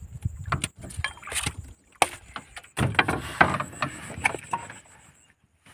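Irregular knocks and slaps on a wooden boat's planking with rustling between them, as a freshly netted fish is handled and dropped in among the catch.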